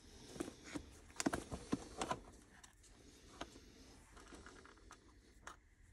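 Light plastic clicks and taps from a compartment assortment box being opened and handled, most of them in the first two seconds, then a few faint ticks as fingers sort through the rubber O-rings inside.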